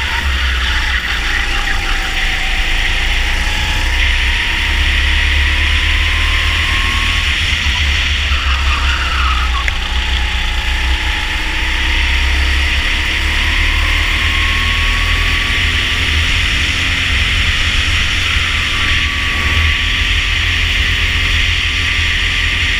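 Rental go-kart engine running at racing speed, heard onboard. Its pitch drops and climbs again several times as it slows for corners and accelerates down the straights. A steady rush of wind noise on the microphone runs under it.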